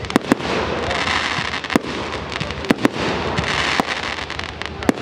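Aerial fireworks shells bursting overhead: about seven sharp bangs, two in quick succession near the start and two close together around the middle, over a steady background noise.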